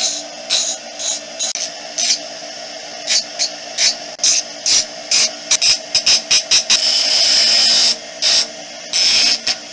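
Bench grinder running steadily while a cut-out sheet-metal bracket is pressed against the grinding wheel in short, repeated passes, each pass a harsh grinding rasp over the motor's hum; one longer pass comes about two-thirds of the way through.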